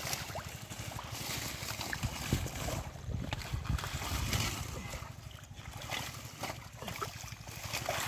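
Muddy water splashing and trickling with wet squelches and rustling as water hyacinth clumps are pulled up by hand, over a low wind rumble on the microphone.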